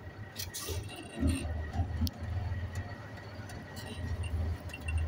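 Semi-truck's diesel engine running at low revs, a steady low rumble heard inside the cab, with a few faint clicks.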